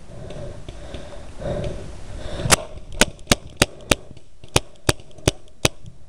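Paintball marker firing a string of nine sharp shots, about three a second, starting about two and a half seconds in.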